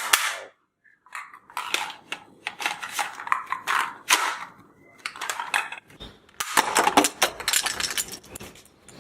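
Clicks and rattles of hard plastic from a ball-bullet toy gun being handled, with a quick run of clicks about six and a half seconds in.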